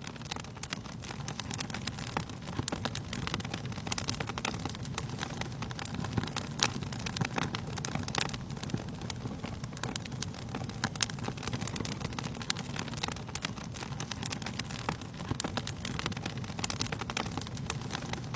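Wood fire burning in a fireplace: a steady low rush of flames with frequent, irregular sharp crackles and pops.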